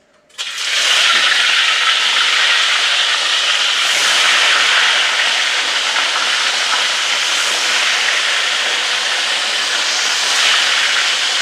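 Fish going into hot oil in a wok: a sudden loud sizzle about half a second in, then steady frying hiss that swells slightly as more fish are added.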